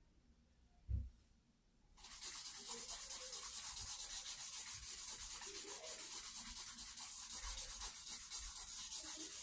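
Stick charcoal scraping and rubbing against drawing paper in quick continuous strokes, starting about two seconds in, with a single soft thump about a second in.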